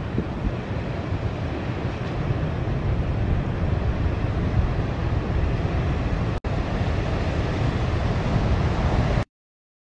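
Ocean surf breaking on a beach with wind buffeting the microphone, a steady noise heaviest in the lows. It breaks off for an instant about six seconds in and cuts off suddenly near the end.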